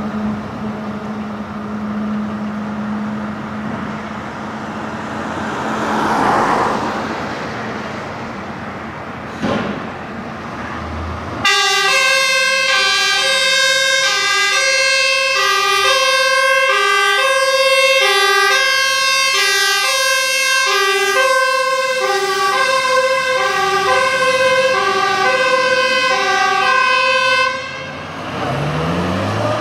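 Fire truck's two-tone siren switched on abruptly, alternating between a high and a low tone for about sixteen seconds before cutting off, as the MAN fire truck pulls out on a call. Before it, a steady engine hum with a vehicle passing; after it, the truck's engine rises in pitch as it accelerates away.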